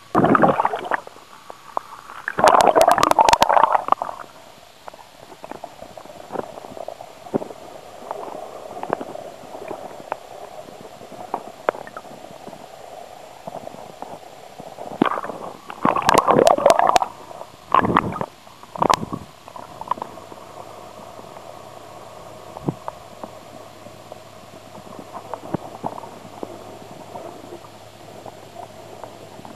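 Muffled underwater gurgling and bubbling picked up by a camera submerged beside a front-crawl swimmer. Several loud rushes of churning water and bubbles come near the start and again about halfway through.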